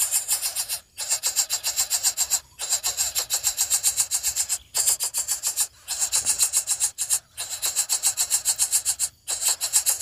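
Greater coucal nestlings begging at the nest as they are fed: a rapid rasping, about eight pulses a second, broken by short pauses every second or two.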